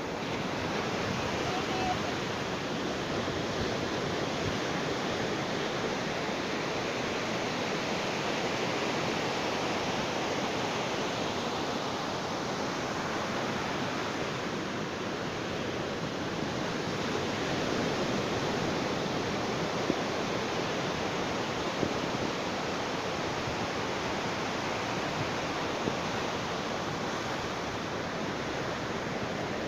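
Sea waves on a beach: continuous rushing surf with slow, gentle rises and falls.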